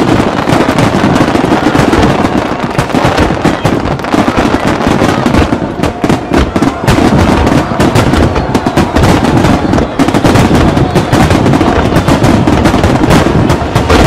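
Fireworks display: a loud, continuous barrage of rapid bangs and crackling shells.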